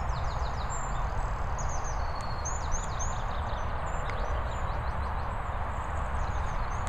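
Songbirds singing in the trees: many quick, high chirps and short downward-sweeping whistles, over a steady low outdoor rumble.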